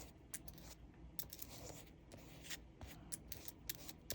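Faint, scattered small clicks and taps with light rustling as paper and craft supplies are handled on a work table.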